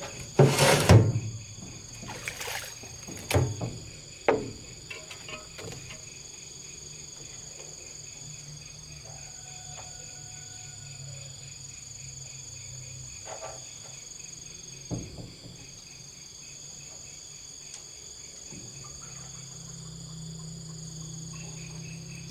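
Steady high-pitched chirring of crickets or other insects, with a low hum underneath. A few short, loud knocks or splashes come in the first few seconds, the loudest about a second in, and one more comes about midway.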